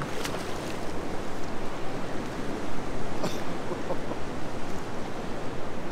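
Steady rushing noise of wind and river water, with two faint clicks, one just after the start and one about three seconds in.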